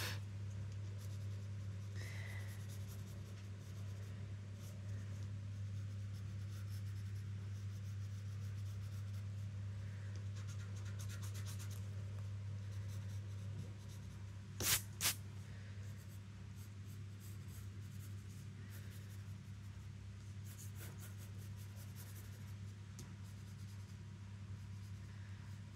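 Wooden pencil scratching and sketching on paper in short strokes, over a steady low hum. Two sharp clicks close together about fifteen seconds in.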